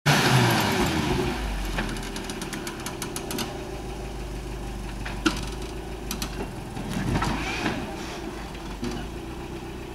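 Engine of a lifted rock-crawling pickup truck running at low revs, louder in the first second and then steady, with a few sharp clicks and knocks along the way.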